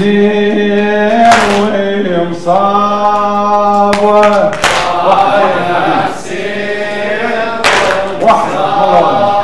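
Male voice chanting a Muharram lament (noha) unaccompanied, drawing out long held notes in a mournful melody, with short breaks between phrases.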